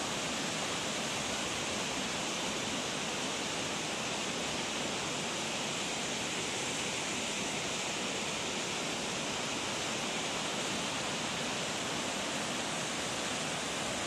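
Yudaki waterfall, a broad cascade of water sliding down a steep rock face, rushing with a steady, even hiss.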